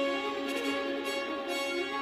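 Orchestral music played back through a car audio system and heard inside the car, with several held notes sounding together.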